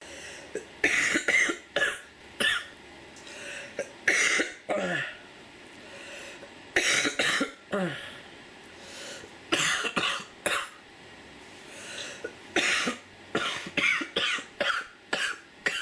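A girl coughing from a chest cold, in short fits of several coughs each, a second or two apart. A couple of the fits trail off in a short sound falling in pitch.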